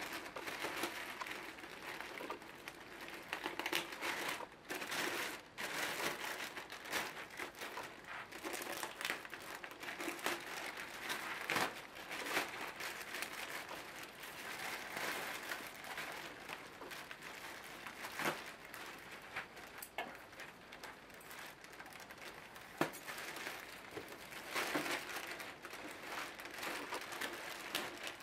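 Thin clear plastic wrapping crinkling and rustling as hands handle it and pull it back, with scattered sharper snaps among the steady crackle.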